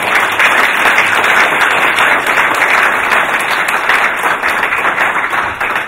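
Audience applauding at the end of a speech, steady dense clapping.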